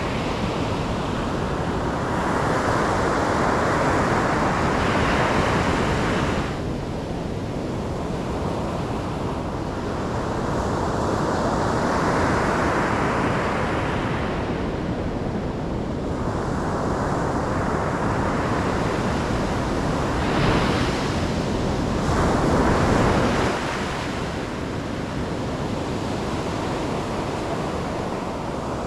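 Ocean waves breaking and washing in, swelling and easing every few seconds, with the loudest break a little past twenty seconds.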